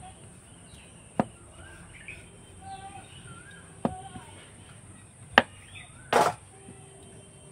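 Wooden rolling pin knocking sharply on a wooden rolling board four times while rolling over a stack of floured dough rounds; the last knock, about six seconds in, is slightly longer. Faint birds chirp in the background.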